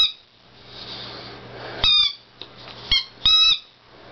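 A dog's squeaky toy pig squeaking as he chews it: short high squeaks about two seconds in and near three seconds, then a longer squeak.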